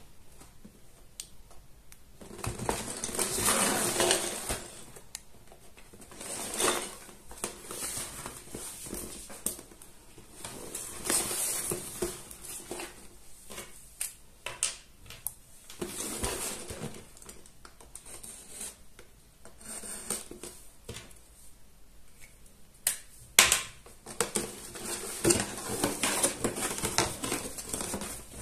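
Cardboard box being handled and turned by hand: slow rubbing and sliding of cardboard, with sharp taps and clicks that come thicker in the last few seconds as the box flap is opened.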